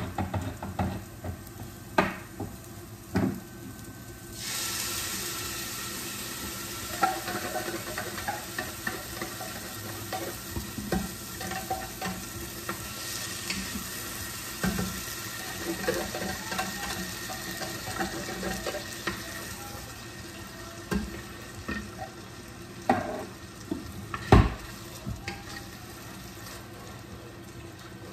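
Onion, potatoes and tomato sauce frying in oil in a pot. A sizzle starts suddenly about four seconds in and slowly dies down, while a wooden spoon stirs and taps against the pot, with one sharp knock near the end.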